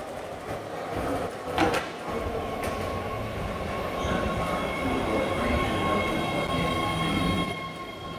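BART subway train pulling into an underground station and braking: the cars rumble, a sharp clack comes about a second and a half in, and a high steady wheel and brake squeal sets in about halfway through. The rumble and squeal die down near the end as the train slows alongside the platform.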